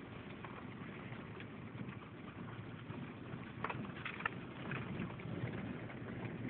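Vehicle cabin noise while driving with a window open: a steady low rumble with rushing air, and a few sharp clicks or rattles a little past halfway.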